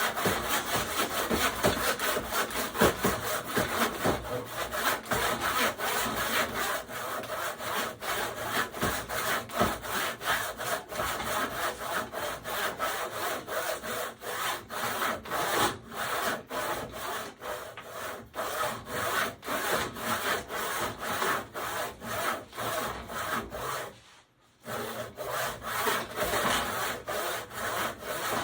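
Handsaw cutting through wood in steady back-and-forth strokes, about two a second, with one brief pause near the end before sawing resumes.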